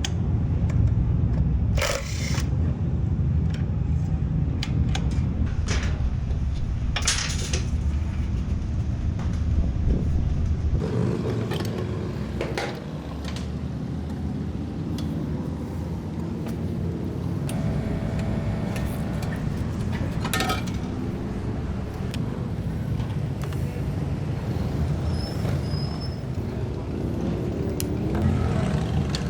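Steady low rumble of workshop background noise, louder for the first ten seconds or so, with scattered clicks and clanks of metal parts and tools being handled.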